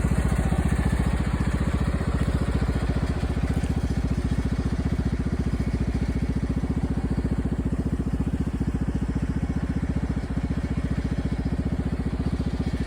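ATV engine idling steadily, left running because the owner cannot turn it off while the battery is acting up.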